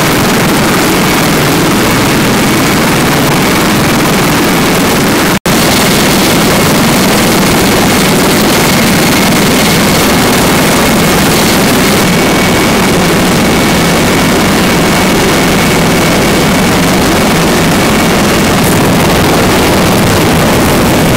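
Three-engine CH-53E Super Stallion helicopter running on the ground with its rotor turning: a loud, steady rush of turbine and rotor noise with a thin high whine held over it. The sound cuts out for an instant about five seconds in.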